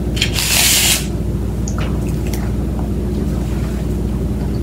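Steady low background hum, with a brief loud rustling noise about half a second in and a few faint clicks.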